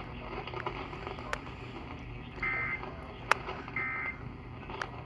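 Emergency Alert System end-of-message data bursts from a NOAA weather radio: short raspy digital bursts about 1.3 seconds apart, the third starting right at the end, the coded signal that the alert broadcast is over. Two sharp clicks, the louder about three seconds in, and a low steady hum underneath.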